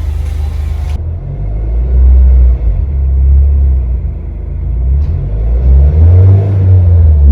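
Honda Brio's exhaust through an aftermarket Kakimoto Racing Regu muffler: a deep, steady rumble that swells and eases as the engine revs rise and fall, climbing again near the end.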